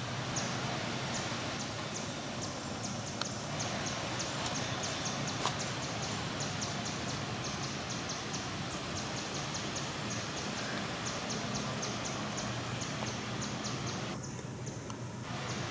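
Outdoor ambience: a steady background hiss with a low hum and many quick, high-pitched ticks or chirps scattered throughout.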